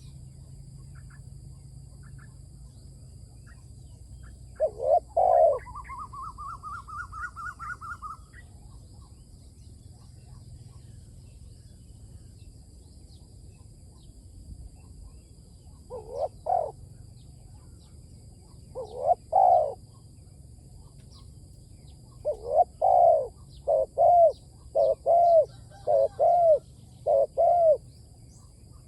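Spotted dove cooing in short, arching coo notes, singly and in groups, with a run of about seven coos near the end. About five seconds in comes a quick trill of notes rising steadily in pitch.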